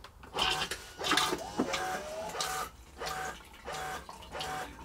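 Thetford iNDUS motorhome toilet running a short pulsating flush: the water comes into the bowl in rhythmic pulses, about two a second, each with a steady hum, just after a button click.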